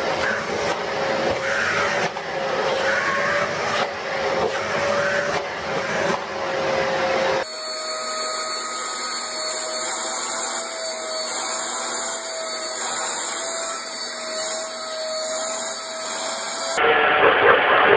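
Vacuum cleaner running with a steady motor whine while its nozzle is worked over a cat's fur. About halfway through, the whine switches to a slightly higher pitch as a second vacuum takes over. About a second before the end, a louder, different sound cuts in.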